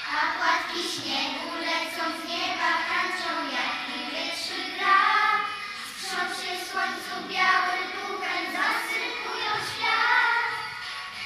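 A group of children singing a song together in unison, in phrases with brief pauses between them.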